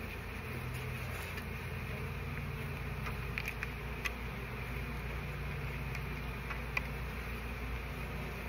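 Honey bee colony buzzing as a steady low hum, with a few light clicks partway through.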